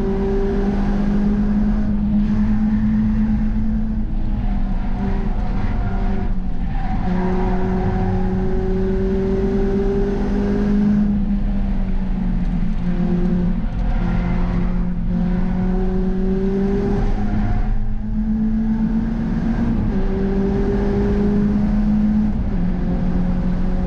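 Peugeot 306 GTi6's 2.0-litre 16-valve four-cylinder engine running hard, heard from inside its stripped cabin at speed. The engine note climbs slowly and drops back several times, over a steady roar of tyres and road.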